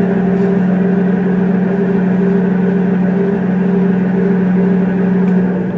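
Jet GH-1660R geared-head engine lathe running with its spindle at 70 RPM: a steady, loud motor and gearbox hum with a pronounced low tone. The hum cuts off right at the end as the spindle is stopped.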